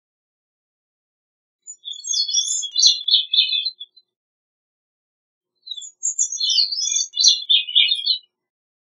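Gray-cheeked thrush singing: two song phrases of about two to three seconds each, made of quick, high, thin notes, with a silent gap of about two seconds between them.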